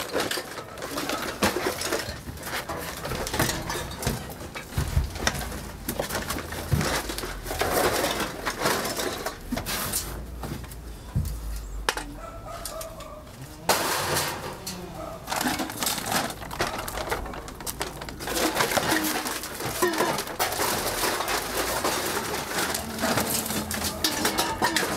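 Scrap iron and old metal cans clanking and clattering as they are shoved and stacked in the back of a van, in irregular knocks. A bird coos now and then.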